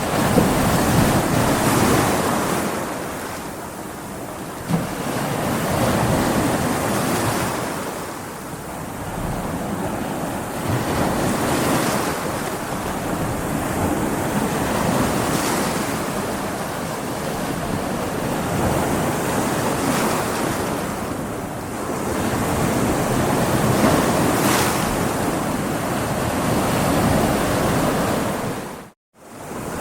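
Ocean waves breaking against rocks, the surf swelling and easing every few seconds. There is a brief gap of silence near the end.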